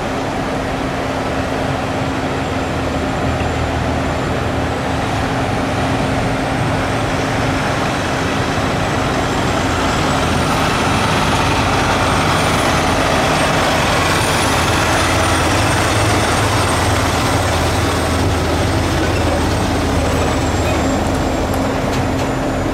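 A semi-truck's diesel engine running with a steady low rumble and hum as the rig pulls a heavy multi-axle trailer slowly past. It grows a little louder in the middle as the truck comes closest.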